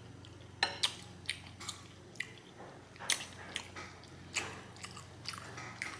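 Close-up mouth sounds of someone eating spaghetti in meat sauce: wet chewing with irregular sharp smacks and clicks.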